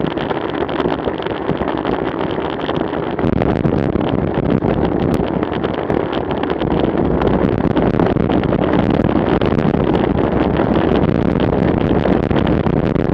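Wind rushing over the microphone of a bike-mounted camera during a fast downhill ride, a steady roar that steps up about three seconds in as the bicycle gathers speed.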